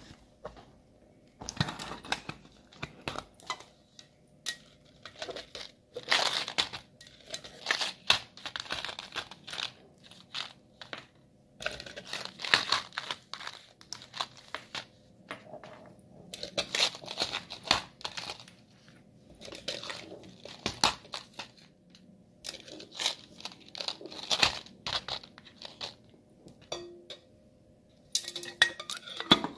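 Hands unpacking a tin money box: repeated bouts of crinkling and tearing packaging, mixed with sharp clicks and knocks of the metal tin and cardboard sweet tubes, each bout a second or two long with short pauses between.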